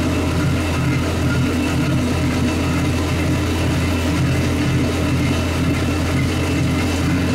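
1998 Sea-Doo GS 720's two-stroke twin engine idling steadily, running on a garden-hose freshwater flush of its cooling system.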